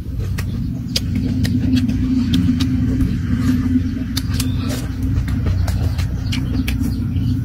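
Close-up mouth sounds of chewing boiled egg: a scatter of short clicks and smacks, over a steady low rumble that is the loudest thing heard.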